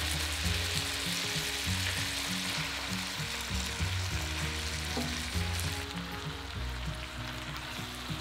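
Hot frying pan of butter, pancetta and garlic sizzling as wet, starchy spaghetti and its dripping cooking water go in, the sizzle easing off about six seconds in. Soft background music with a bass line plays underneath.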